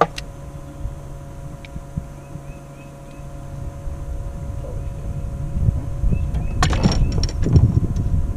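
Electric outboard motor whining steadily, with small bird chirps in the background. About five seconds in, a low rumble builds, and a clatter of knocks comes near the end.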